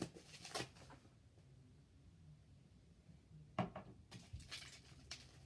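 A few light knocks from plastic slime containers being handled and set down, one about half a second in and a small cluster between three and a half and four and a half seconds, over quiet room tone.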